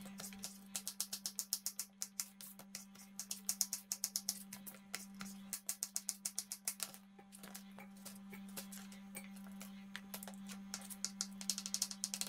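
Kitchen knife chopping on a plastic cutting board, dicing cucumber and, near the end, a boiled egg. The taps come in quick runs of several a second, with short pauses between runs.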